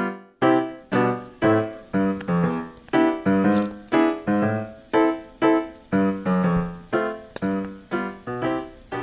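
Background piano music: evenly paced notes, about two a second, each struck and fading away.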